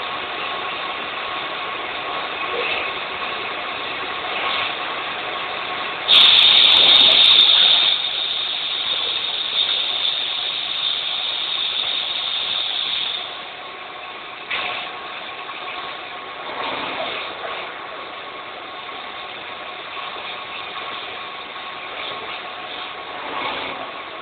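CNC lathe running with a steady mechanical hum and a faint steady whine. A loud hiss starts suddenly about six seconds in and lasts about two seconds, and the machine noise drops lower about thirteen seconds in.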